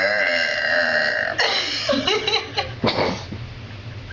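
A girl's long, drawn-out belch, its pitch wavering, breaking off about a second and a half in, followed by brief laughter.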